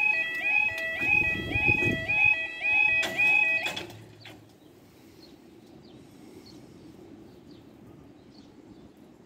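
Level crossing's electronic warning alarm, a rising yodel tone repeated about two and a half times a second while the barriers come down, cutting off suddenly about four seconds in once they are down. After that only faint background with a few small bird chirps.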